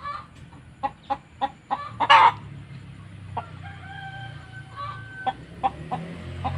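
Chickens clucking in a string of short calls, with one louder squawk about two seconds in and a longer drawn-out pitched call near the middle.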